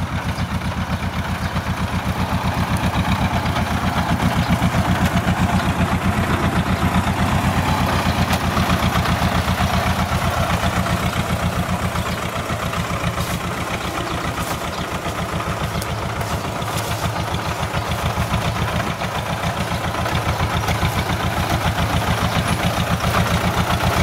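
Tractor engine running steadily close by, with an even firing beat.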